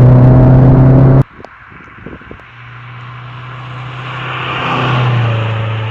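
Lotus Elise S2's Rover 1.8 K-series four-cylinder running loud and steady close up, cut off abruptly about a second in. The car then drives past, its engine note building to a peak near five seconds and dropping slightly in pitch as it goes by before fading.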